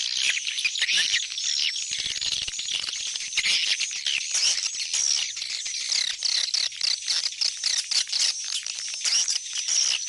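Swiftlets twittering: a dense, continuous chatter of rapid high chirps, many overlapping each second. It is the homing-call recording played to draw swiftlets back into a swiftlet house.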